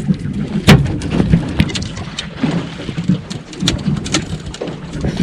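Water slapping against the hull of a small aluminium boat: irregular sharp knocks and splashes over a low rumble.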